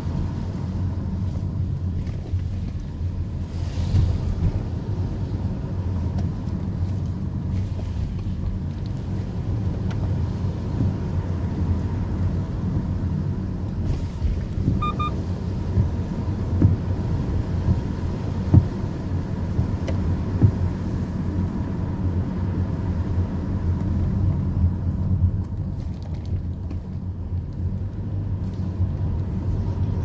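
Car driving on a road, heard from inside the cabin: a steady low engine and tyre rumble. About halfway there is a short double beep, followed by a few thumps.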